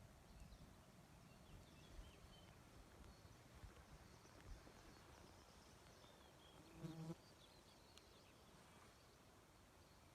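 Near silence with faint, scattered high bird chirps and one short buzz about seven seconds in.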